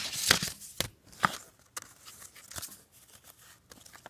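View-Master reels in paper sleeves being sorted and handled: a few sharp clicks and papery rustles in the first second and a half, then fainter rustling and small clicks.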